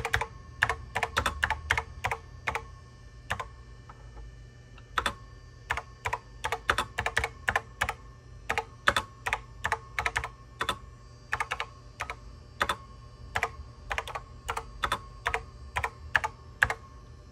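Typing on a NABU PC keyboard: a quick, irregular run of key clicks with a short lull a few seconds in. Under it runs the steady whine of a network switch fan.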